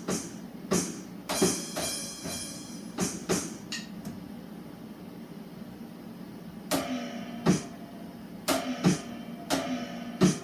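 Drum hits played one at a time in a loose, uneven pattern: a run of sharp strikes, a pause of about two seconds, then more strikes that each leave a short pitched ring.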